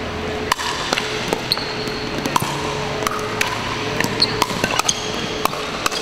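Pickleball paddles striking a hollow plastic ball during a rally: a quick, irregular string of sharp pops, some from neighbouring courts.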